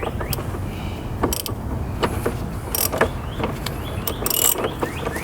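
Hand tools working a 10 mm bolt in an engine bay: scattered metallic clicks and short scrapes at irregular intervals, with birds chirping faintly in the background.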